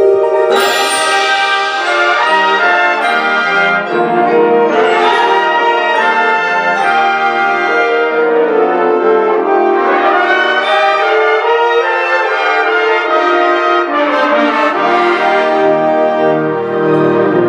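Concert band playing loud, sustained brass-heavy chords, with trombones and trumpets to the fore. Bright high parts surge in several times.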